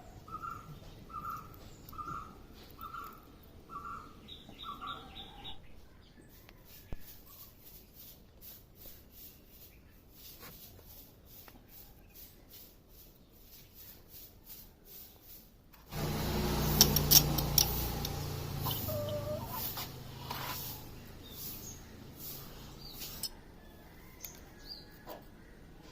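A bird calling one short note over and over, about seven times at an even pace, then faint scattered ticks. About two-thirds of the way in a louder rumbling noise with a low hum starts suddenly and fades away over several seconds.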